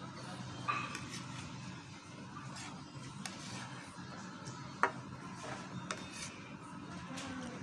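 A metal spoon scraping and clinking against a plate of fried rice, with a sharp clink about five seconds in, over a steady low background hum.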